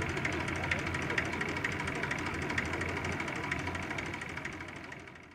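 Bristol F.2B Fighter's Rolls-Royce Falcon V12 engine running at low power as the biplane taxis on grass after landing; the sound fades out near the end.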